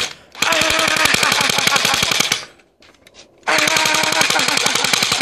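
Tommy gun (Thompson submachine gun) firing on full automatic in long rapid bursts: one ends at the very start, a second runs about two seconds, and a third starts about three and a half seconds in. A drawn-out pitched cry, like a yell, sounds over the shots.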